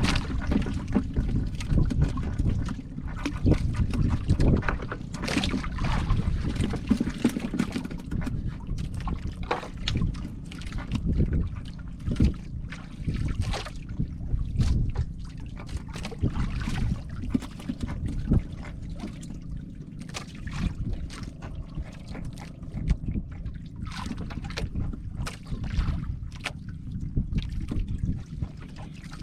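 Water sloshing and splashing around a small fishing boat, with wind rumbling on the microphone and irregular knocks and clicks throughout.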